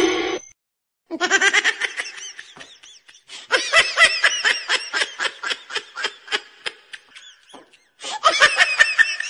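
A person laughing hard in quick high-pitched pulses, breaking off briefly twice.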